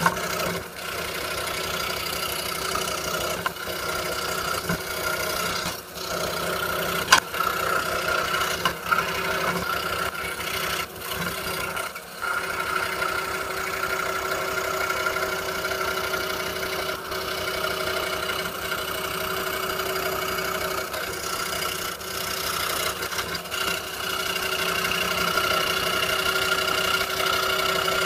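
A 26-inch RBI Hawk scroll saw running steadily, its 5-0 skip-tooth blade cutting Baltic birch plywood, with a few brief dips and a sharp click about seven seconds in.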